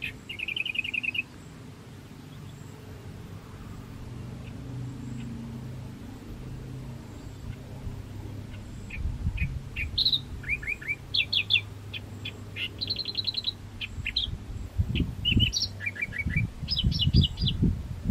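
Small birds chirping: a quick trill at the start, then from about nine seconds on a run of varied short chirps and trills. Under them are a steady low hum and a few bursts of low rumble.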